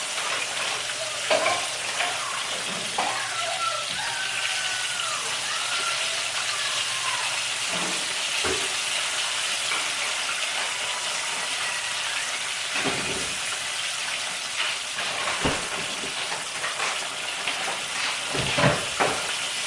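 Fish frying in a pan of hot, reused grease, giving a steady crackling sizzle. A few dull knocks are heard along the way.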